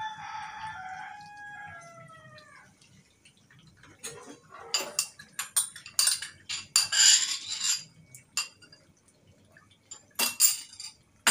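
A rooster crows once, a call of about two and a half seconds whose end falls in pitch. From about four seconds in, a spoon scrapes and clinks against a metal wok as cream is stirred into the chicken, with a further burst of clinks near the end.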